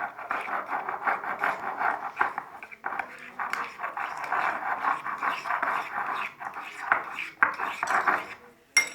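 A spoon scraping and clinking against a bowl while stirring a sticky glue-and-borax slime mixture, with brief pauses, stopping near the end with a sharp click.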